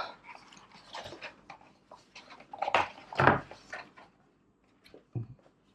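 Rustling and light knocks of cardboard packaging and paper as a quick start guide is taken out of a keyboard box, coming in short bursts. A brief voice-like sound comes about three seconds in.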